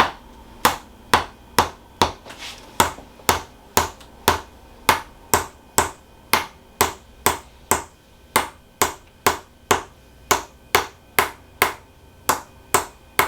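A steady series of sharp percussive taps, about two a second, from chiropractic treatment on the middle of the back.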